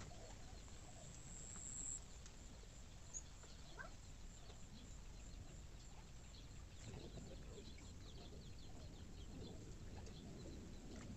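Very quiet outdoor ambience with faint, scattered bird chirps, most of them in the second half.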